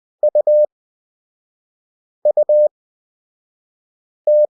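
A Morse code practice tone, one steady mid-pitched beep keyed on and off, sends the letter U (dit-dit-dah) twice at 20 WPM character speed. Long Farnsworth gaps of about two seconds separate the letters, and the dah of the next letter begins near the end.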